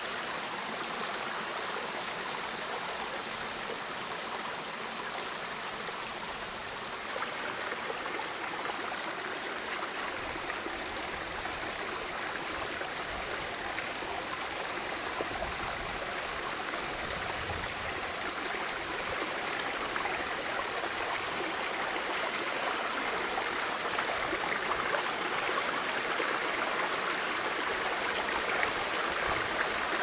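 Shallow stony brook rushing and splashing over rocks and small rapids, a steady water noise. It gets a little louder about seven seconds in and again later on.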